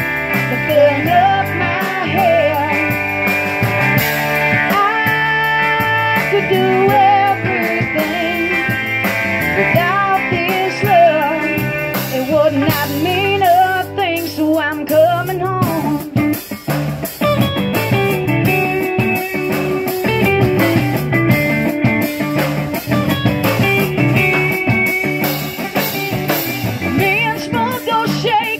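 Live blues-rock band playing: electric guitars, bass guitar and drum kit, with a wavering, bending lead melody over a steady beat.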